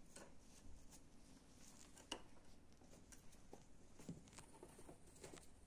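Faint, irregular taps and rustles of two ragdoll kittens' paws scuffling on a fabric blanket and carpet as they play-fight.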